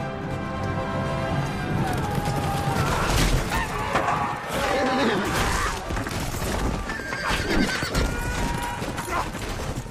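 Film battle mix: a cavalry charge of galloping horses with neighing and dense clattering impacts as the riders crash into a line of foot soldiers, over the film's music. The music holds sustained notes at first, and the clatter of hooves and impacts takes over about two seconds in, with horses neighing a few times.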